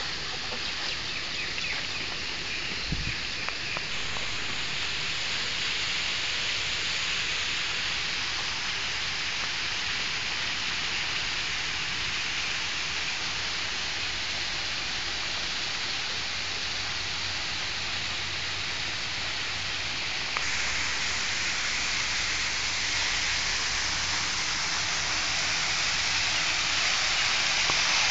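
Water cascading down an artificial rock waterfall and splashing into its pool: a steady hiss of falling water that grows louder near the end.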